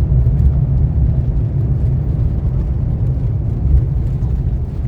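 Steady low rumble of a jet airliner heard from inside the passenger cabin: engine and airflow noise.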